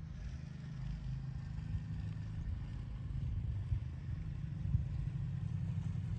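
Low, steady engine rumble with two brief knocks partway through.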